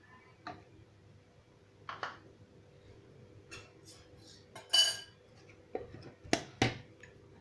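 Stainless steel kitchen bowl and utensils being handled and set down on a counter: scattered light clinks and knocks, with one ringing metal clink about five seconds in and two sharper knocks near the end.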